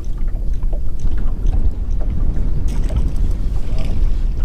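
Wind buffeting the microphone on an open boat deck: a loud, uneven low rumble, with a few faint clicks over it.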